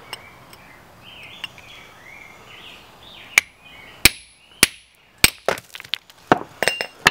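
A heavy hammer striking a steel chisel set on a garnet-bearing rock to split it. Sharp metallic strikes with a short ring, about a dozen of them, begin about three seconds in and come quicker toward the end.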